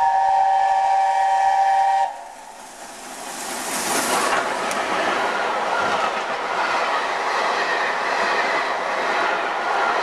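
LNER A4 Pacific steam locomotive 60019 Bittern sounding its chime whistle, a steady chord of several notes that cuts off about two seconds in. The locomotive then passes at speed, and the coaches follow with a steady loud rush of wheel and rail noise.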